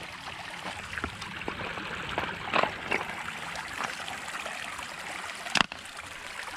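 Shallow stream running and trickling over pebbles, with scattered small clicks and one sharp knock about five and a half seconds in.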